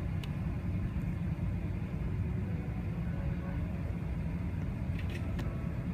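Steady low rumble of an Airbus A380's cabin while the airliner taxis, its engines at low taxi power, with a few light clicks about five seconds in.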